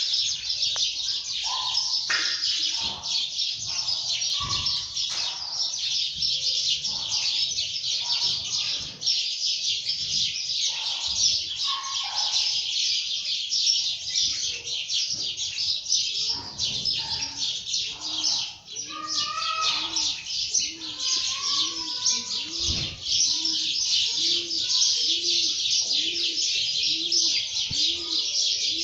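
Many small birds chirping continuously. From about two-thirds of the way in, a dove coos low in a steady repeated series, a little over one coo a second.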